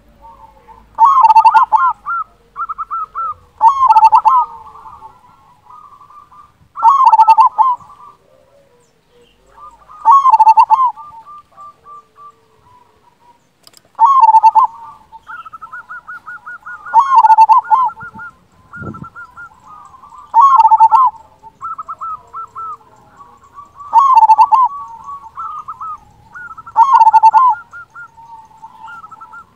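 Zebra dove (perkutut) singing: loud cooing phrases about every three seconds, with softer quick stuttering notes between them.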